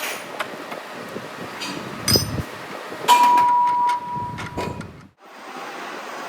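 Metal clanks and knocks in a workshop: a clang about two seconds in, then a sharp metallic strike followed by a steady ringing tone that lasts about a second. The sound breaks off abruptly near the end, where the background changes.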